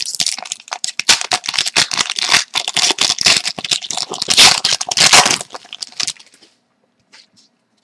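A foil trading-card pack wrapper being torn open and crinkled by hand, a dense run of crackling and tearing that stops about six seconds in.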